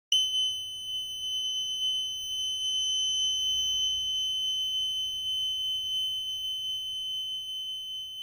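Active buzzer (TMB12A12) sounding one continuous, unbroken high-pitched tone. It is the alarm sounder of a homemade transistor and photodiode fire alarm circuit going off.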